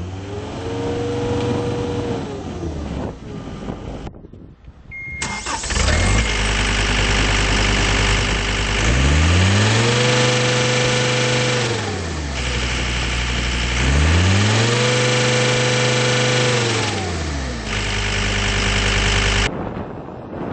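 John Deere 326D skid steer's turbo diesel engine revving up and back down once. After a short beep it starts up about five seconds in, then revs up and settles back to idle twice.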